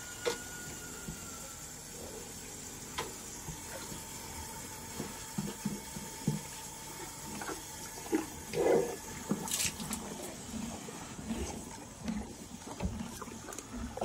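Horse drinking from a bucket with its muzzle in the water: irregular soft slurps and gulps, with a few sharp clicks. The loudest gulp comes about nine seconds in.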